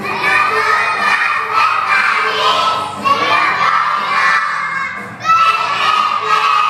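A group of preschool children singing loudly together in unison, phrase by phrase, with short breaks about three and five seconds in.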